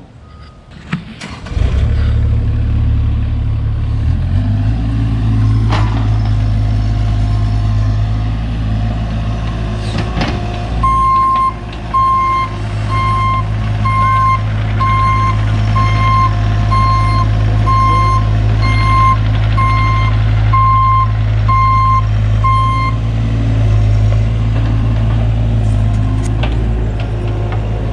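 Truck engine running steadily, its backup alarm beeping in an even rhythm for about twelve seconds in the middle as it reverses.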